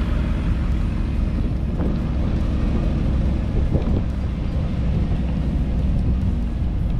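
Wind buffeting the microphone over a steady low road rumble from a bass boat being towed on its trailer behind a pickup truck.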